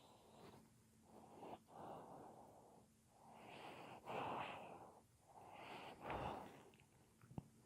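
Sleeping dog snoring softly, with three slow breaths about two seconds apart, each breath in and out heard as a pair of rough swells. A small click near the end.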